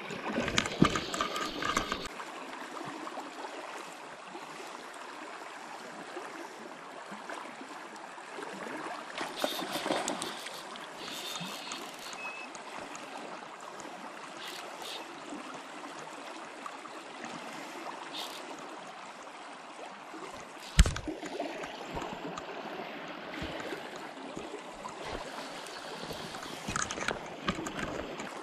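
Steady rush of flowing river water, with a few brief knocks; the loudest is a sharp thump about 21 seconds in.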